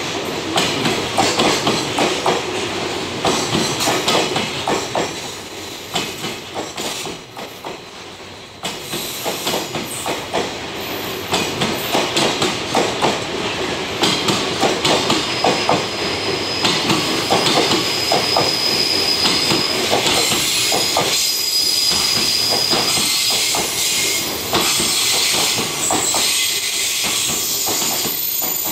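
Loaded Koki container flatcars of a long freight train rolling past, their wheels clattering in a steady rhythm over the rail joints. From about halfway a thin high squeal from the wheels rides over the clatter.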